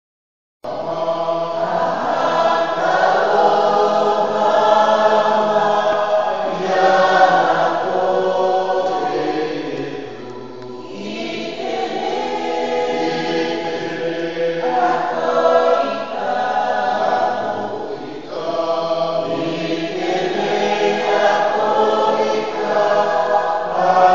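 A church congregation singing a hymn together in harmony, in long phrases with brief breaks between them.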